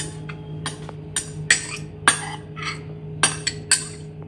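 Metal spoon clinking against glass bowls while scooping chopped vegetables: about ten sharp, irregularly spaced taps, each with a short ring.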